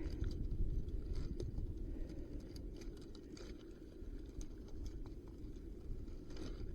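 Faint scattered clicks and light rustling of a piece of scrap circuitry being handled and turned over, over a steady low background rumble.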